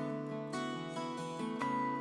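Background music: gentle acoustic guitar picking.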